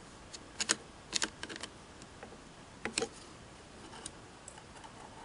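A small screwdriver snugging a set screw on a Singer 403A sewing machine's bobbin-case positioning bracket, with a feeler gauge held in the gap: a handful of light metallic clicks and ticks from tool against metal, with quiet between.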